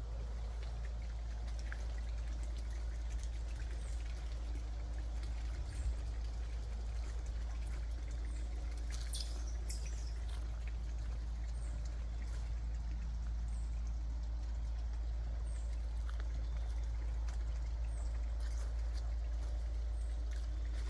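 Outdoor garden ambience: a steady low rumble with faint high chirps every few seconds and soft steps on mulch, and one short, sharp high sound about nine seconds in.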